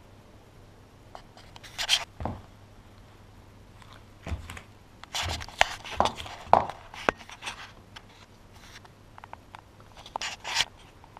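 Handling noise as a hand-held camera is moved around a chess board: scattered scrapes and rustles with a few light knocks, loudest in the middle and again near the end.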